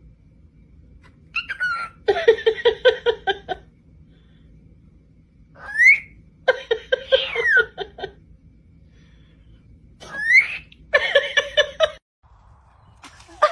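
A small pet bird whistling and chattering in three bouts. Each bout is a gliding whistle that rises (and once falls back), followed by a quick run of high, rapidly pulsing chatter.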